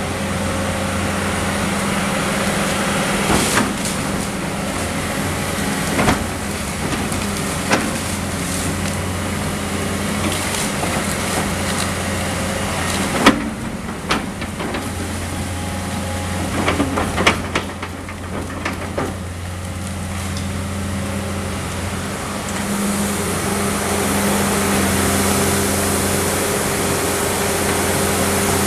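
John Deere 450C LC excavator's diesel engine running steadily, its note growing louder near the end. Several sharp crashes and thuds come from wood and brick demolition debris as the bucket and thumb break and drop rubble.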